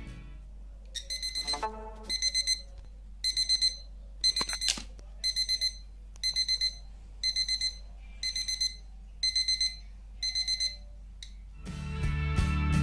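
Buzzer of a homemade fire alarm sounding: rapid high-pitched beeps in groups of about four or five, one group roughly every second, stopping near the end. The alarm is set off by heating the tube-light starter that serves as its heat switch.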